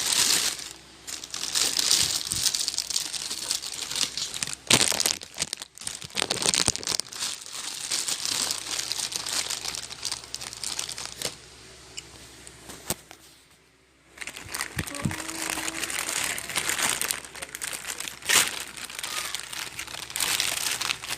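Plastic packaging crinkling and rustling as it is handled and unwrapped, with a short pause about two-thirds of the way through.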